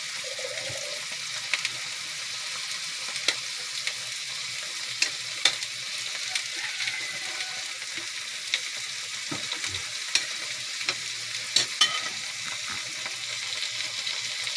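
Pieces of wild pig meat, tomato, garlic and onion frying in a wok with a steady sizzle. A metal ladle clinks and scrapes against the wok now and then as the food is stirred.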